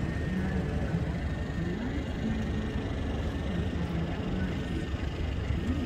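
Steady outdoor city ambience: a constant low rumble like distant traffic, with faint voices of people nearby.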